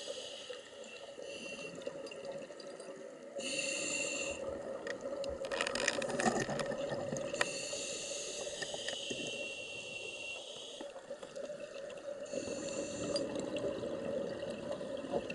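Scuba divers breathing through their regulators underwater: hissing inhalations of a second or so, several times over, alternating with crackly bubbling exhalations, over a steady hum.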